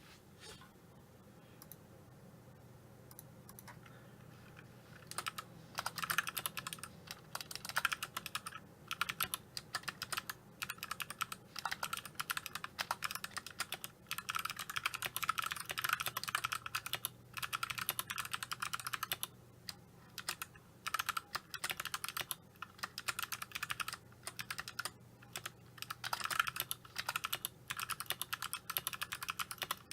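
Typing on a Vortex Pok3r mechanical keyboard with Kailh Box Navy clicky switches and PBT keycaps, keys bottoming out. A few scattered keystrokes, then from about five seconds in fast runs of sharp clicks broken by short pauses.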